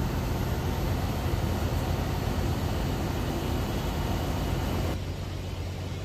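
Daikin VRV4 outdoor condensing unit running: a steady rush of air from its fan over a low hum. The sound drops and grows duller about five seconds in.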